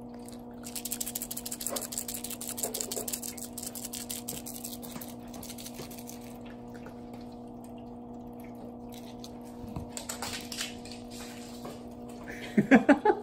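Rapid crackling and rustling for the first few seconds over a steady electrical hum, then a few short, loud sounds that bend in pitch near the end.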